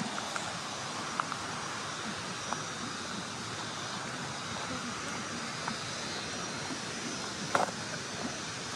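Steady rush of running water from a stream or falls, with a few short, sharp clicks at uneven intervals, the loudest near the end.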